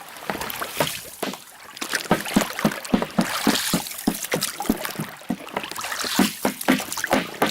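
Water splashing and slapping around a small rowboat as it is rowed, a quick irregular run of short wet knocks from about two seconds in.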